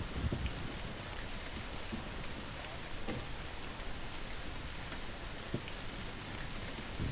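Steady rain falling, with scattered drop ticks and a brief dull low thump near the start.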